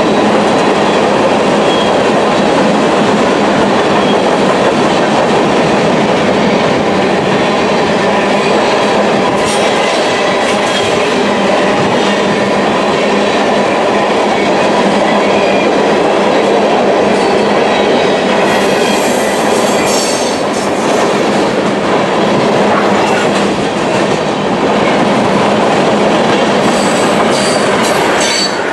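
BNSF manifest freight train's tank cars and covered hoppers rolling past close by: a steady, loud rumble and clatter of steel wheels over the rail. Faint high wheel squeals come and go, with brief clanks in the second half.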